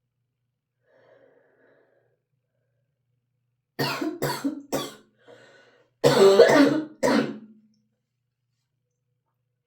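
A person sneezing in a rapid fit brought on by Chhinkni herbal sneezing powder: three quick sneezes close together about four seconds in, then two louder, longer sneezes a couple of seconds later.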